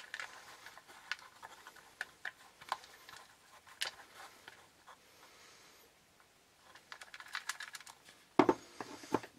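Fingers pressing and levelling loose coco coir and soil substrate inside a small clear plastic enclosure: scattered light clicks and scratches of fingertips and substrate against the plastic walls, with a louder knock and a quick run of clicks near the end.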